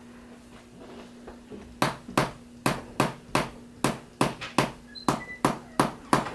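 About a dozen sharp tapping strikes, roughly two to three a second, beginning about two seconds in: a chiropractor's percussive tapping on a patient's body.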